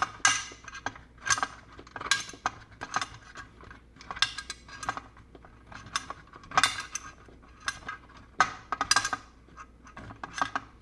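Irregular metallic clicks and clinks, about two a second, from small metal tools and parts being worked while a small threaded fitting is tightened.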